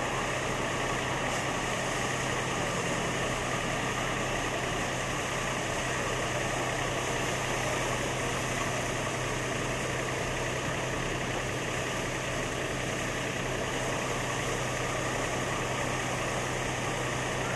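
Wheat harvesting machine's engine and works running steadily, an even drone with a constant low hum.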